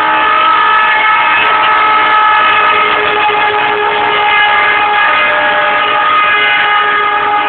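A loud, long horn blast: several steady tones sounding together, shifting slightly partway through, and cutting off near the end.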